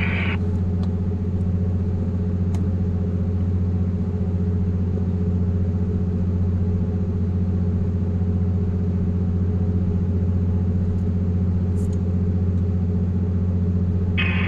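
Steady low drone of a ship's running machinery heard on deck, unchanging throughout, with a few faint clicks over it.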